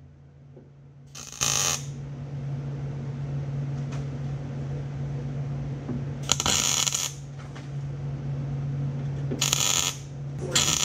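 Arc welder tack-welding a new steel rocker panel onto a pickup's cab: short bursts of crackling arc noise, one about a second in, another around six seconds, a third near nine and a half, and a fourth starting at the very end. A steady low hum runs underneath.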